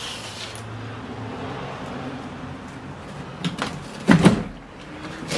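Plastic fuel tank being set down into its rusted steel tank holder, with handling and scraping noise, then a few sharp knocks and thuds about four seconds in and another knock at the end as it settles.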